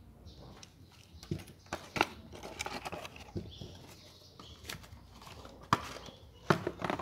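Scattered plastic clicks and knocks of a folding selfie stick and its packaging being handled and set down on a desk, with some rustling between. The loudest knocks come near the end.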